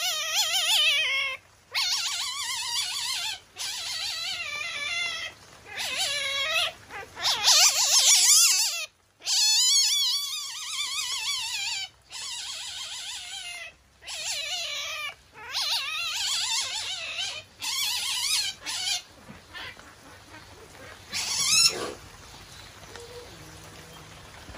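Masked palm civet giving a long series of high-pitched calls, each a second or more, with a wavering, trilling pitch and short breaks between them. These are the irritated, agitated calls of an annoyed civet. The calls stop about three-quarters of the way through, leaving quieter sound with one short sharp noise.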